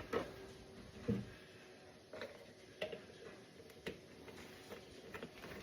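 Scattered light clicks and knocks, about six over a few seconds, from equipment being handled during a gearbox oil change.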